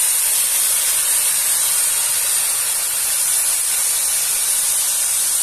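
Broth poured into a hot pot of toasted rice and beef rib, hitting the hot pan and sizzling with a loud, steady hiss of steam.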